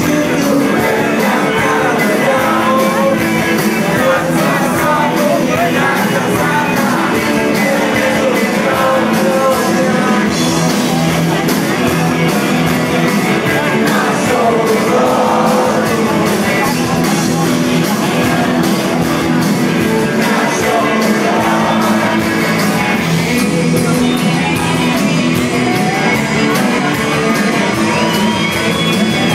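Live rock band playing loudly, electric guitar and drums with a singing voice, heard from within the audience.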